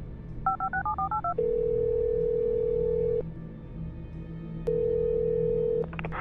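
Telephone keypad tones, a quick run of about eight short beeps, then a steady phone-line tone held for about two seconds and, after a pause, again for about a second, over a steady low hum.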